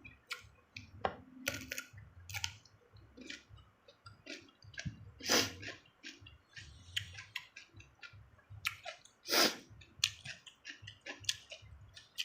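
A person chewing crunchy raw ulam, cucumber and young mango, a run of wet crunching and clicking mouth sounds, with two louder crunches about five and nine seconds in.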